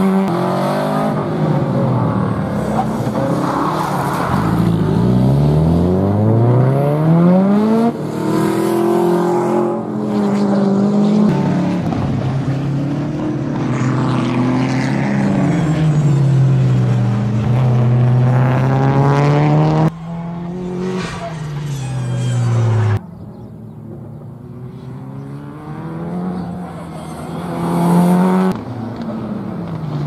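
Subaru Impreza WRX STI rally car's turbocharged flat-four boxer engine revving hard as the car accelerates, shifts, brakes and turns through a circuit stage, the pitch climbing and dropping again and again. The sound breaks off abruptly several times.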